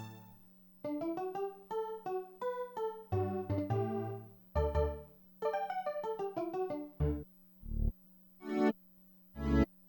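Kawai FS640 arranger keyboard being played to test its voices: quick runs of short notes, then, about seven seconds in, a string of separate low hits roughly one a second, over a faint steady hum.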